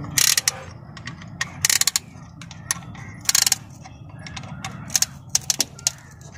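Ratchet of a band-type piston ring compressor clicking in short bursts, about five times, as it is tightened with an Allen key around an oiled diesel piston. It is squeezing the piston rings into their grooves so the piston can slide into the cylinder.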